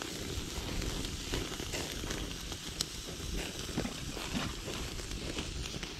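Wood fire crackling in a steel fire bowl under a swing grill, with scattered sharp pops over a low steady rumble.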